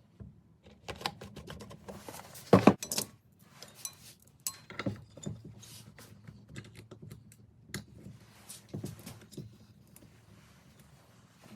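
Hand tools and small metal parts clicking and clinking in scattered taps, with a louder clatter about two and a half seconds in.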